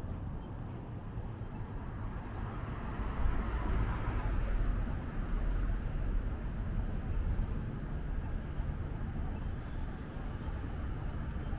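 Steady low rumble of city street traffic, with a brief thin high tone about four seconds in.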